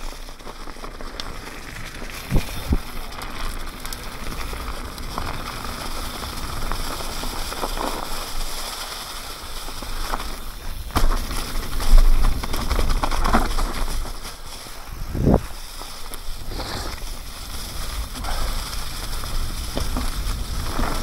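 Mountain bike tyres rolling fast over a trail covered in dry fallen leaves, a steady crackling rush, with occasional sharp knocks and rattles from the bike on rough ground and low wind rumble on the microphone at times.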